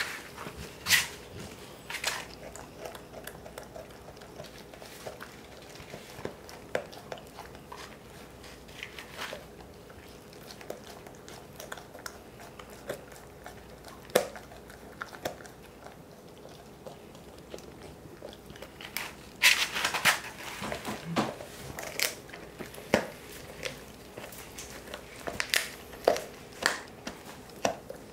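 A Cane Corso gnawing a giant knotted milk-bone chew, with irregular crunching and crackling bites. The bites are sparse for a stretch in the middle, then come thick and fast about two-thirds through and again near the end.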